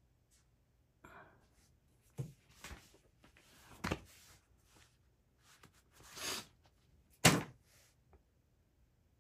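Scattered handling noises, rustles and soft thumps, with one sharp thump about seven seconds in.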